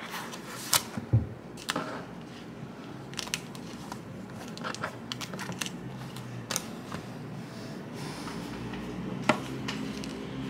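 Scattered taps, clicks and light knocks of a tablet in a folio case and a stylus being handled on a table, with a soft thump about a second in and a sharper click near the end.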